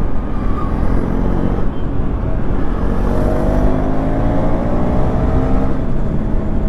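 KTM Duke 390 Gen 3's single-cylinder engine under hard acceleration, its pitch rising steadily through fourth gear, then shifting up into fifth near the end, over a steady rush of wind and road noise.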